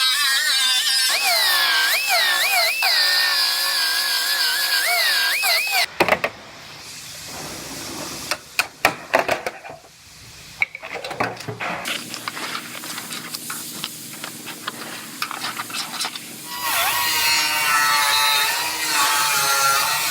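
Handheld power tool working on car-body sheet metal, its pitch dipping and recovering again and again as it loads up. It stops after about six seconds, giving way to scattered metal knocks and clanks. It starts up again near the end.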